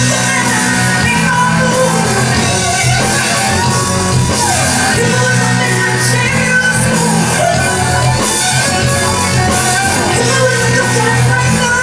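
Live rock band playing: electric guitar, electric bass and drums, with a woman singing lead.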